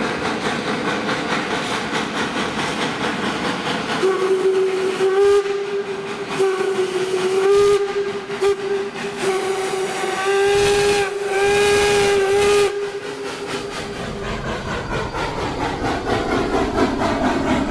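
Baldwin steam locomotive No. 26 sounding its steam whistle at one steady pitch. It starts about four seconds in and goes on for about ten seconds as a run of blasts with short breaks. Under it are the hiss and rumble of the moving engine and coaches.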